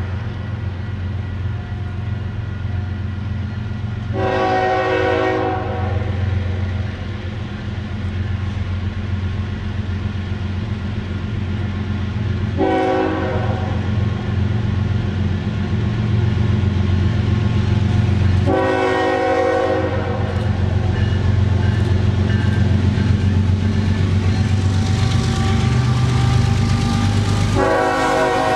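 Nathan K5HL air horn on a Norfolk Southern ES44AC diesel locomotive sounding a sequence of blasts: a long one about four seconds in, a short one near the middle, a long one a few seconds later, and another starting near the end. Underneath, the steady low rumble of the four locomotives' diesel engines grows louder as the train approaches.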